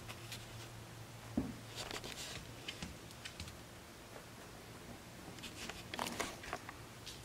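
Pet Holland lop rabbit moving about the floor: faint rustles and scattered light clicks, with one thump about a second and a half in.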